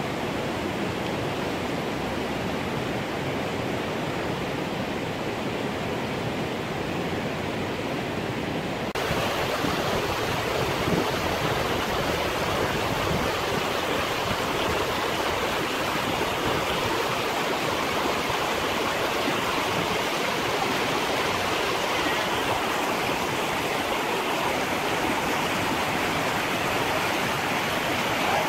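Steady rush of water falling from a tall alpine waterfall, an even roar with no breaks. About nine seconds in it becomes louder and brighter.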